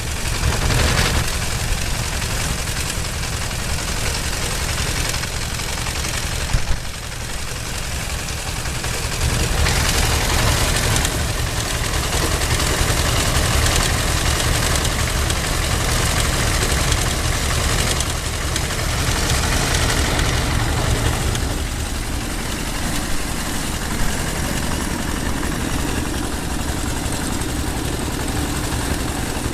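Engine-driven rice threshing machine running steadily, its engine note under the noise of the rolling drum and fans. It grows louder for a stretch in the middle, with a brief knock about seven seconds in.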